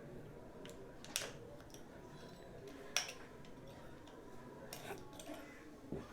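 Light clicks and taps of small hard objects being handled, with sharper ones about a second in and about three seconds in.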